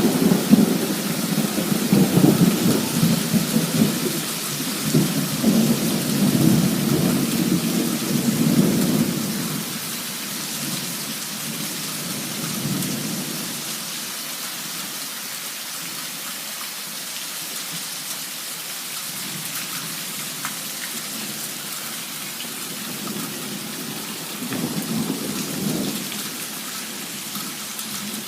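Thunderstorm in a heavy downpour: thunder rumbling for the first nine seconds or so over the steady hiss of heavy rain, then dying away into the rain alone, with a second, shorter rumble near the end.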